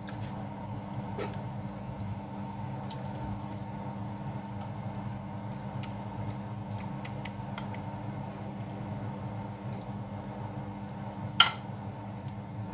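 Light clinks and taps of a utensil against a dish as lasagna layers are laid in, with one sharper clink near the end, over a steady background hum.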